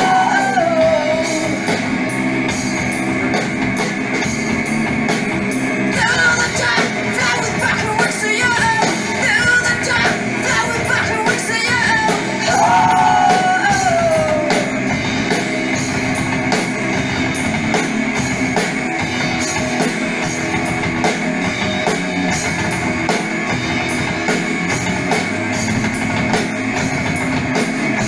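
Live rock band playing loud, with electric guitar, bass and drum kit. A woman sings from about 6 to 14 seconds in, and the band then plays on without vocals.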